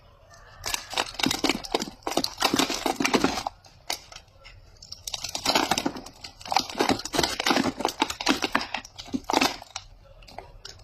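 Soap wrapper being crinkled and torn open by hand, in two spells of dense crackling rustle with a short pause between them.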